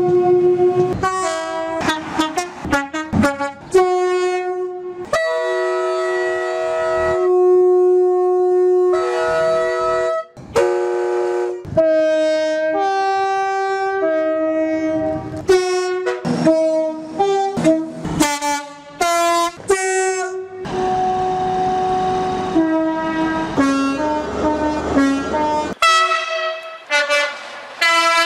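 Two-tone horns of British diesel trains sounding in quick succession: short high-low blasts mixed with a few longer held notes. Each horn is cut off abruptly as the next one starts.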